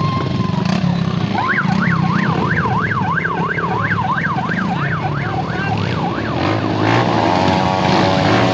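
Electronic siren wailing in fast up-and-down sweeps, about three a second, over motorcycle engines running. Near the end the siren stops, a steadier buzzing tone takes over and the sound gets louder.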